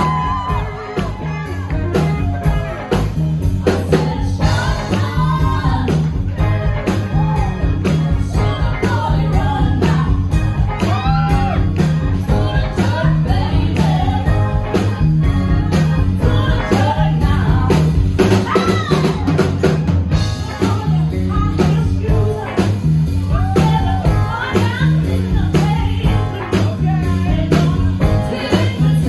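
Live band playing an upbeat soul number: two female singers singing lead over electric guitars, bass guitar and a drum kit keeping a steady beat.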